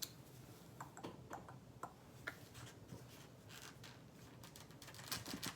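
Faint, scattered small taps and clicks of craft supplies being handled while painting leaves, with a few quick ones close together near the end.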